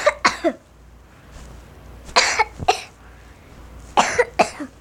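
A person coughing in three short fits about two seconds apart, each fit two or three quick coughs.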